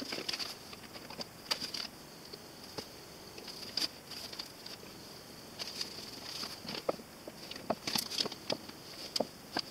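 Scattered light taps, clicks and rustles of hands handling a maple end-grain cutting board and tape on a CNC bed, over a faint steady high-pitched hiss.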